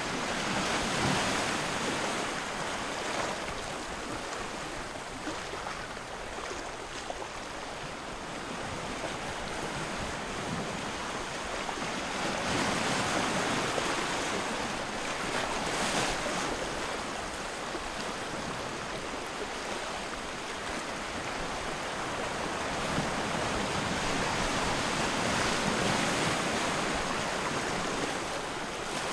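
Wind blowing, a steady rushing hiss that swells and eases every few seconds.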